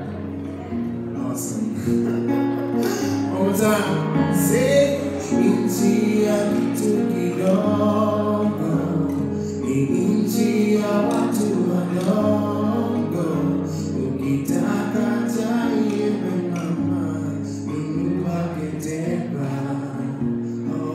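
A man singing over his own acoustic guitar in a live solo performance.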